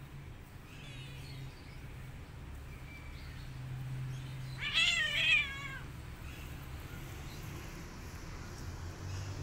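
A cat gives one loud, wavering cry about a second long, midway through, as the mother cat turns on her nursing kittens and swats at them.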